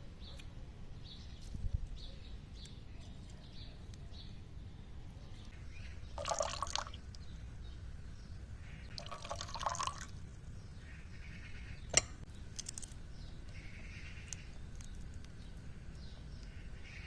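Liquid being poured in two short spells, with a single sharp click later on.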